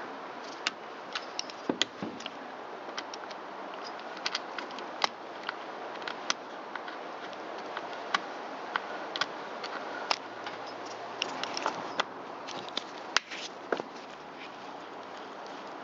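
Irregular sharp clicks and taps of a hand tool and small parts, from an Allen key working on the rear suspension holders of an Echo chainsaw's housing during disassembly.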